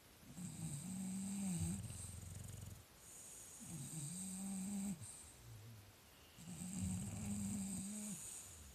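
English bulldog snoring: three long snoring breaths about a second apart, each carrying a low steady snore with a thin high whistle over it.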